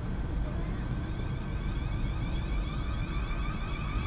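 A South West Trains Siemens Desiro electric multiple unit pulling away from the platform. Its traction motors give a rising whine in several tones that keeps climbing over a low rumble as it speeds up.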